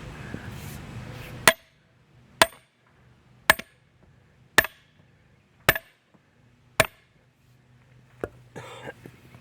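Five-pound sledgehammer striking a duckbill, a wedge driven in to force a padlock's shackle open. Six sharp metal-on-metal blows about a second apart, each with a brief high ring, then a lighter seventh blow near the end.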